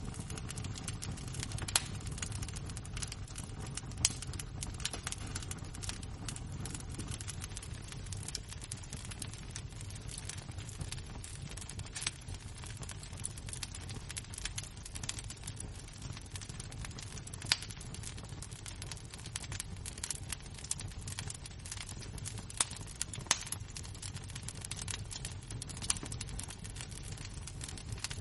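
Burning wood and embers crackling: a constant fine ticking with a handful of louder sharp pops scattered through, over a steady low rumble.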